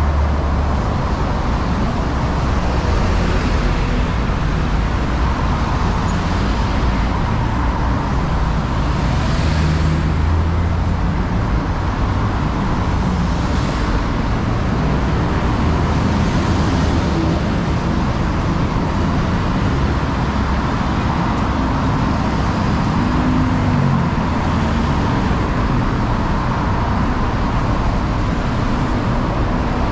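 Steady road traffic on a busy city road, with a low rumble and several vehicles passing, each swelling and fading over a few seconds.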